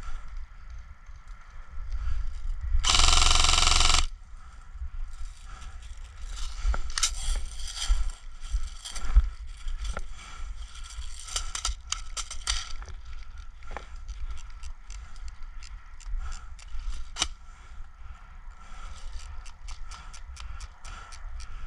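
Scraping and crackling with many scattered sharp clicks. About three seconds in there is a loud rushing noise lasting roughly a second.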